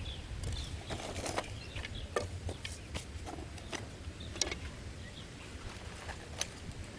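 Scattered light knocks and rustles with a few faint bird chirps.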